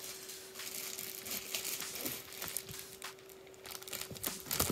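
Thin clear plastic bag crinkling in irregular faint crackles as a network switch is worked out of it by hand.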